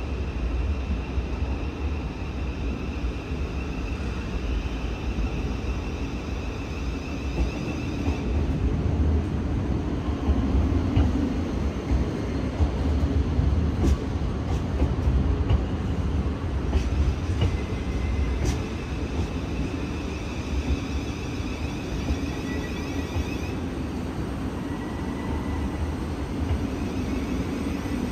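Siemens Class 700 electric multiple unit pulling into a platform and slowing to a stop: a low rumble of wheels on rail, loudest in the middle as the carriages pass, under the high electronic whine of its traction motors, a sound likened to a UFO.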